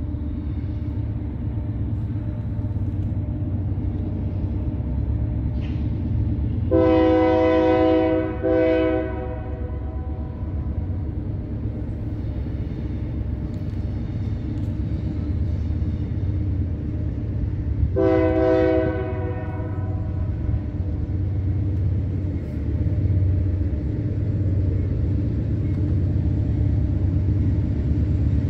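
Diesel locomotive air horn sounding: a long blast about seven seconds in, run straight into a short one, then another long blast some ten seconds later. A steady low rumble of the train runs underneath.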